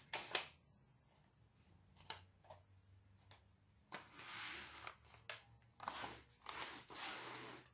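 Paper kulich baking molds rustling and sliding on a silicone baking mat as they are picked up and set down. There are several short rustles, a longer one about four seconds in and more near the end.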